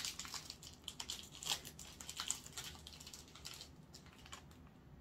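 Crinkling and rustling of the wrapper being peeled off an insulin syringe: a quick run of small crackles and clicks that dies away after about four seconds.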